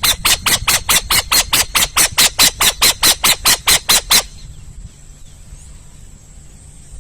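An owl calling in a rapid series of about twenty short, noisy calls, roughly five a second, stopping about four seconds in.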